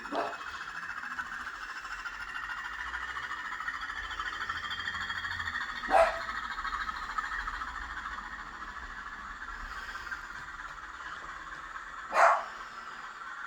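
Hornby TTS sound decoder in a Class 20 model locomotive playing diesel engine running sound through its small speaker, a steady thin drone with a faint rise in pitch. Three short, sharp barks cut through it: once at the start, about six seconds in and about twelve seconds in.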